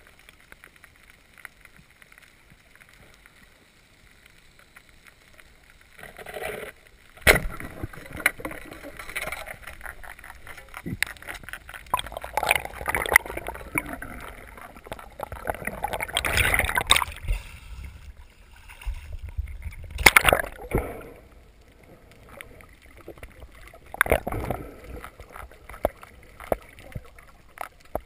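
Band-powered speargun fired underwater: one sharp, loud crack about seven seconds in, followed by a stretch of crackling, rustling water noise and clatter as the shaft and line are handled with the speared fish on them, and another sharp knock about twenty seconds in.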